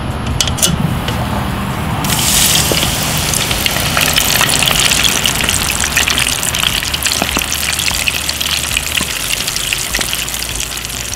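Battered chicken going into hot frying oil: about two seconds in the grease breaks into a loud, crackling sizzle that carries on steadily, easing slightly near the end.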